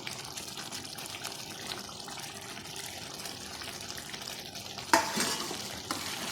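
Thick chicken gravy cooking in a kadai, sizzling while being stirred with a spoon, with small scraping ticks throughout and one sharp clink of the spoon against the pan about five seconds in.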